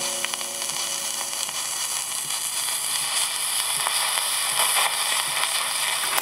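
Surface noise of a 78 rpm record played on a 1965 Molodezhny valve electrophone, with no music left: a steady hiss with scattered crackles and clicks as the stylus rides the run-out groove near the label. The noise cuts off suddenly at the very end.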